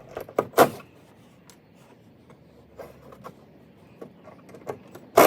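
Wooden battens being handled and taken off the timber: scattered knocks and clicks of wood, the loudest about half a second in, with a short loud burst of scraping noise at the end.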